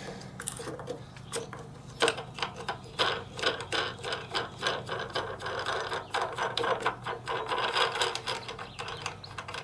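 Ratchet wrench clicking in quick, uneven runs as a fastener on a small engine's air-cleaner housing is backed off.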